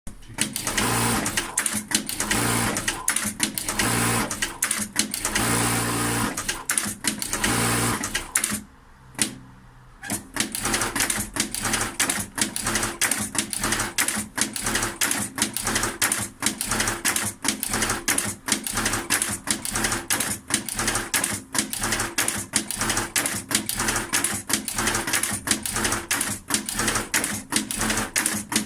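A machine running with a fast, even mechanical clatter of clicks and knocks. It stops about nine seconds in and starts again a second or so later.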